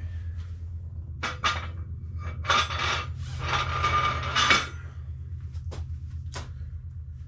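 Weight plates clanking and scraping as they are handled and loaded onto a barbell: a few sharp knocks, then a louder ringing scrape for about two seconds, a few seconds in, and two more knocks near the end.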